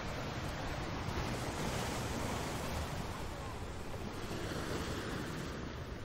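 Sea surf breaking and washing over rocks: a continuous rushing of water that swells in the first few seconds and eases slightly near the end, with wind blowing across the shore.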